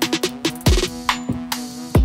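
Electronic music: a deep kick drum whose pitch drops on each hit, quick hi-hat ticks and a held synth note.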